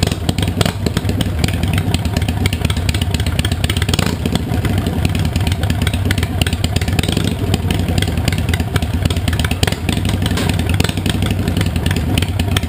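Harley-Davidson Sportster 883 Iron's air-cooled V-twin running steadily at idle, heard close to its exhaust with a fast, even pulsing beat.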